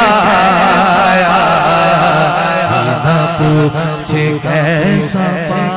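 A male voice sings an unaccompanied Urdu hamd into a microphone, in long wavering melismatic runs with heavy vibrato. A steady low held tone runs beneath the voice.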